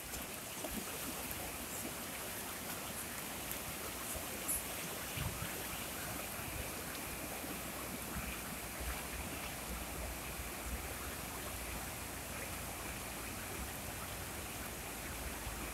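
Swollen, muddy river rushing steadily past the gravel bank.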